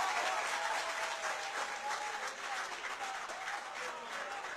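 Audience applauding after a speaker's line, the clapping slowly dying down toward the end.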